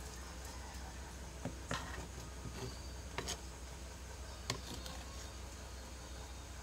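Kitchen knife knocking and scraping on a cutting board while minced raw tuna is gathered: a few scattered sharp taps, the loudest about four and a half seconds in, over a steady low hum.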